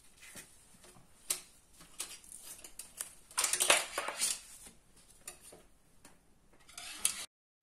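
Satin ribbon being pulled off its roll and handled over cardboard: light rustles and clicks, with a louder rustle about three and a half seconds in, before the sound cuts out abruptly near the end.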